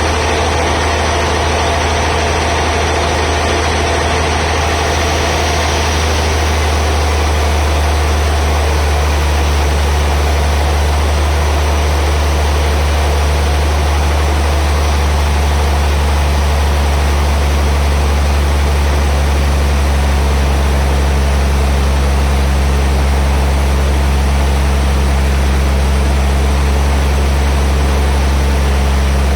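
Heavy sawmill machinery running steadily with a deep, continuous hum; the sound changes a little about six seconds in.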